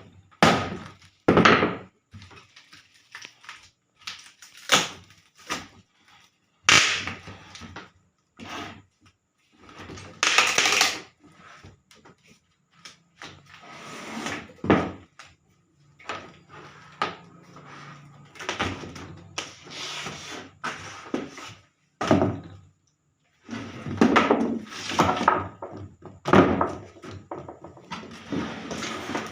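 Irregular wooden knocks and thuds from a small wooden coffee table being handled and worked on, mixed with short scraping strokes of about a second each.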